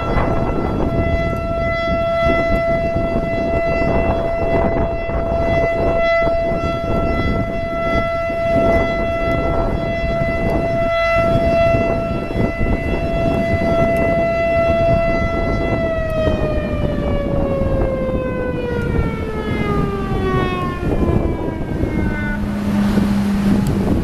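American Signal Alertronic AL-8000 electronic outdoor warning siren sounding its steady alert tone for a tornado warning. About two-thirds of the way through, the tone starts to fall smoothly in pitch as the signal winds down. Heavy wind noise on the microphone runs underneath throughout.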